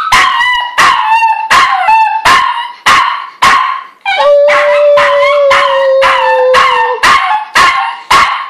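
Toy Fox Terrier howling in a wavering, pitched "singing" cry, broken by short sharp yelps about three times a second. In the middle the dog holds a lower, steady note for about three seconds.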